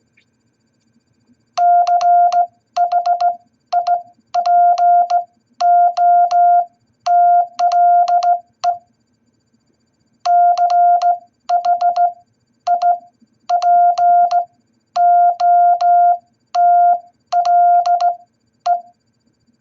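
Morse code tone beeping out the word "Chipotle" in dots and dashes, played twice with a short pause between. It is a single steady beep, each dot and dash starting and stopping with a faint click.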